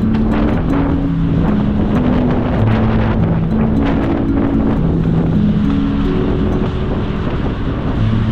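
Background music: a slow melody of held notes over steady wind noise on the microphone and street traffic from a bicycle ride.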